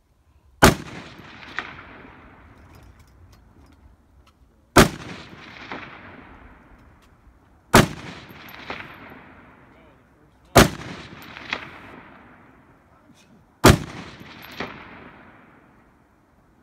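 Five rifle shots from a scoped, bipod-rested rifle, spaced about three to four seconds apart. Each is a sharp crack followed by a long rolling echo, with a fainter second crack about a second after it.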